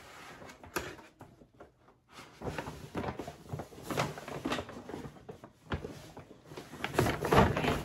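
Full paper shopping bags rustling and crinkling as they are lifted and shifted by their handles, in irregular bursts that grow louder about seven seconds in.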